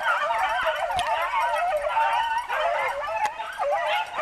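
A pack of rabbit hounds baying on a rabbit's trail: many overlapping, wavering howls running together without a break, the sign that the dogs are running a rabbit through the brush.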